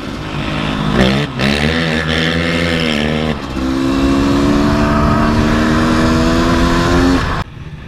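A 2003 Gas Gas EC 250's two-stroke engine under way, revving up and down through gear changes, then held at steady high revs with its pitch slowly climbing. The sound cuts off abruptly near the end.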